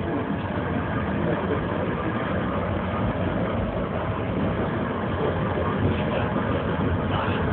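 Steady rumbling running noise inside a tram.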